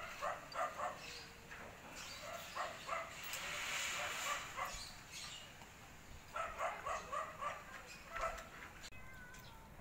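A dog barking repeatedly in short clusters of barks, with a brief rushing noise swelling in the middle.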